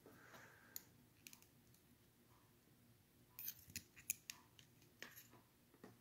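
Faint, scattered small clicks of a folding switchblade-style key being handled, folded and snapped open, with a short run of clicks about halfway through.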